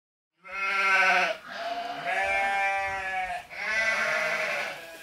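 Three long bleating calls in a row, each held at a fairly steady pitch, starting about half a second in.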